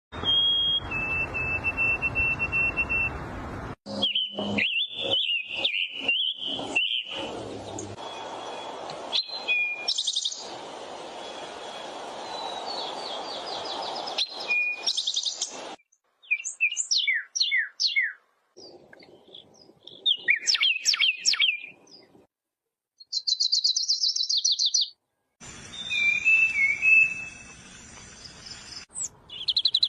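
Birds chirping and calling: held whistled notes, quick rising and falling chirps and rapid trills, in a string of short pieces that start and stop abruptly with brief silences between them.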